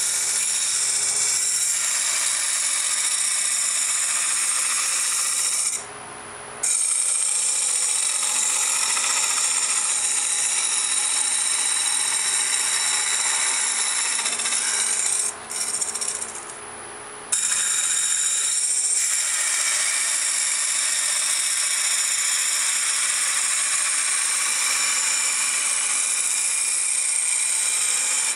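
Lathe cutting tool taking roughing cuts on a spinning sumac blank, shaping it into a sphere: a steady, hissy scraping of wood being cut. The sound breaks off twice, about six seconds in and for about two seconds around sixteen seconds, when the tool comes off the wood.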